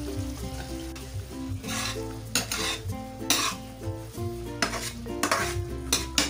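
Metal spatula stirring and scraping across a frying pan of sardine and glass-noodle sauce as it cooks down, in several irregular strokes. Light background music plays underneath.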